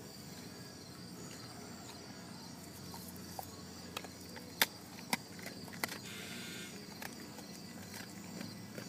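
German shepherd chewing a hard pig-shaped chew treat: a handful of sharp, short crunches, about five spread through the middle, with quiet between them.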